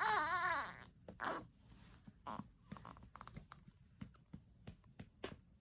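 A newborn baby gives a short wavering cry at the start, then a brief second whimper. After that come soft, irregular pats and taps, as the baby is patted on the back to bring up a burp.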